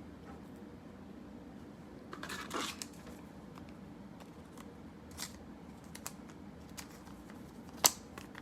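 Trading cards and a foil card-pack wrapper being handled: a brief crinkling rustle about two seconds in, scattered light clicks, and one sharp click near the end.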